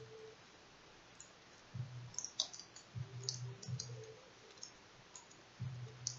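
Small plastic clicks and ticks of fingers handling the thin cables and clips inside a laptop's display lid, scattered and irregular. A faint low hum comes and goes between them.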